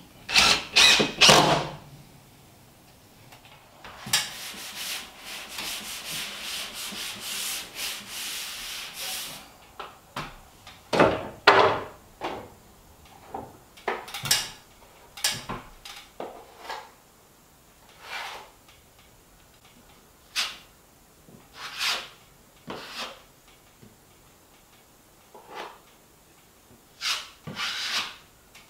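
Hand sanding of drywall joint compound on a ceiling with a sanding block, in scraping strokes. There is a run of quick back-and-forth strokes for about five seconds early on, then separate strokes every second or two.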